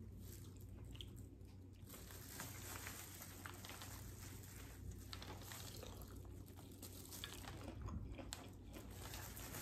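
Faint close-up chewing and biting of okra, with small scattered crunches and clicks.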